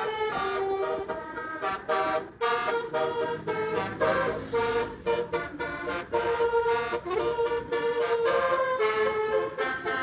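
Bus basuri (telolet) musical horn playing a tune: a run of loud horn notes stepping up and down in pitch, each held a fraction of a second, with short breaks between phrases.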